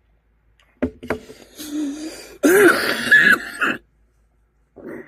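A person's coughing fit from whooping cough (pertussis): two sharp coughs about a second in, then a longer, louder stretch of coughing with a pitched sound in it, and one short cough near the end.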